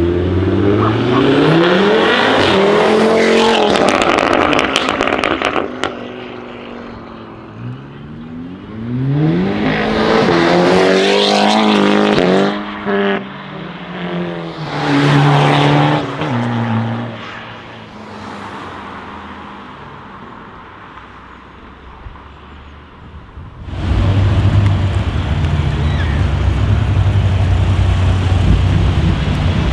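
Audi RS3's straight-piped five-cylinder turbo engine accelerating hard twice, its pitch climbing and dropping back at each gear change. A rattle of exhaust crackles follows the first pull. In the last few seconds a steady engine drone starts abruptly.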